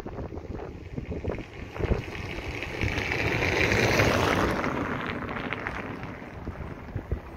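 Wind buffeting the microphone over the low rumble of a receding freight train, with a car's tyre noise swelling and fading as it passes close by, loudest about four seconds in.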